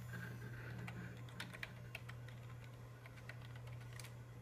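Scattered, irregular clicks of keys being pressed on a computer keyboard, over the steady low hum of a running desktop PC.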